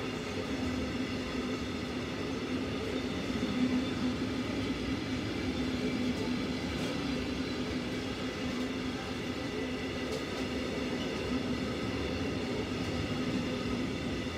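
Container flat wagons of a freight train rolling past: a steady rumble of wheels on rail with an even ringing hum.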